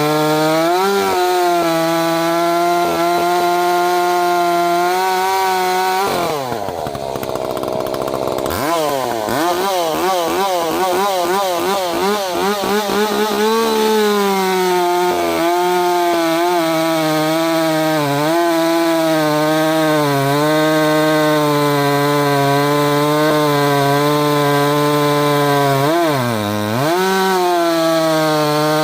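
Ported Echo CS-590 two-stroke chainsaw running at high revs while cutting hard maple. Its pitch drops sharply about six seconds in, wavers up and down for several seconds, then settles back high, with another brief dip near the end.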